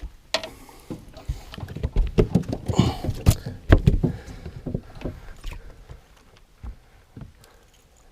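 Irregular knocks, thumps and clatter of gear being handled and shifted about in a fishing boat, busiest in the middle and dying down after about six seconds.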